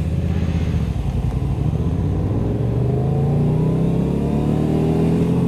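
Kawasaki Ninja 636 inline-four sportbike engine pulling away under throttle. It rumbles low at first, then from about halfway its pitch climbs steadily as the bike accelerates.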